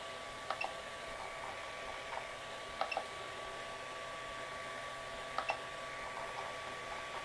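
Faint clicks of a 3D printer's rotary control dial as it is turned and pressed, including three close double clicks, over a faint steady hum.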